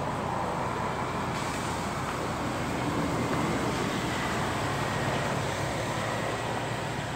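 Steady outdoor background noise: an even low rumble and hiss, with a faint thin high tone through the middle.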